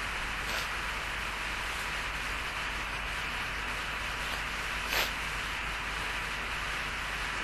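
Steady hiss with a short, sharp stifled sneeze, a held-in sneeze let out through a closed mouth and nose, about five seconds in, and a fainter one near the start.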